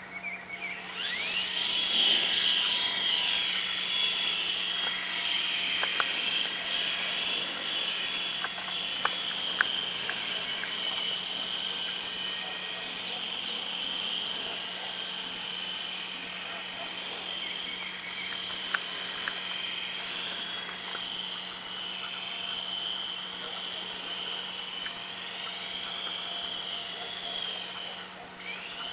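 Small electric RC helicopter's motor and rotor whining as it spins up and flies. The high whine rises about a second in, then wavers up and down in pitch as the helicopter manoeuvres, with a few faint clicks.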